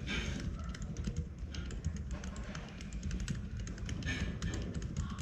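Typing on a UT47.2 40% mechanical keyboard with Gazzew Bobagum switches lubed with Krytox 205g0 and KAT Alpha keycaps: a rapid, continuous stream of keystrokes.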